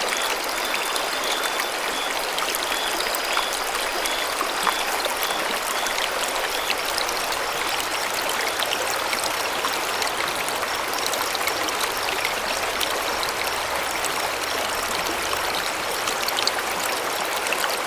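Steady rush of water falling and running at Bopath Ella waterfall, an even hiss with no breaks. For the first several seconds a faint high chirp repeats about once or twice a second above it.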